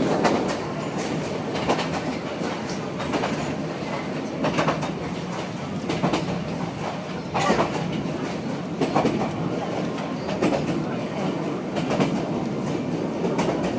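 Yangon Circle Line train running, a steady rumble with irregular clacks from the wheels passing over rail joints.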